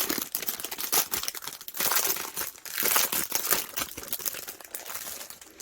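Crinkling plastic as small bags of diamond-painting drills are handled and shuffled, in irregular rustles that fade near the end.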